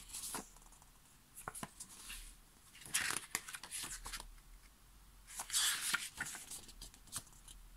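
Paper pages of a small lyrics booklet being turned and handled: soft rustling, with two louder rustles, one about three seconds in and one between five and six seconds.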